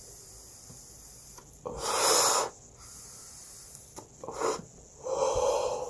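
A person breathing hard after a hit from a vape cartridge pen: a long breathy exhale of vapour about two seconds in, then a short puff and another long breath near the end.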